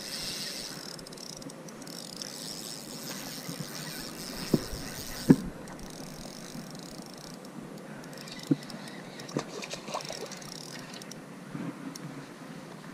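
Shimano Stradic CI4+ spinning reel being cranked while a bass is fighting on the line: a steady soft winding hiss, broken by a few sharp handling knocks, the loudest about five seconds in.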